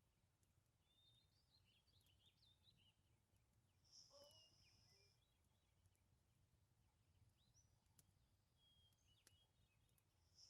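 Near silence: a faint low hum with scattered faint high chirps and a few light ticks, and one brief slightly louder high sound about four seconds in.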